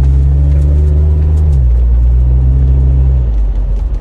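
Superchips-tuned Jeep Wrangler engine pulling under throttle, heard from inside the cabin: a loud, steady low drone whose pitch steps down slightly about one and a half seconds in, then falls away about three seconds in as the load comes off.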